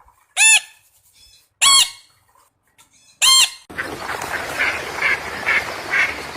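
Three loud, short bird calls about one and a half seconds apart, each rising and then falling in pitch. Near the end a different recording takes over, with a steady noisy background and shorter calls about twice a second.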